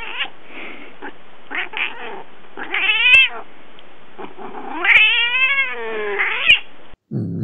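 A young cat yowling angrily: a few short cries, then two long drawn-out calls, the second about one and a half seconds long, rising and then falling in pitch.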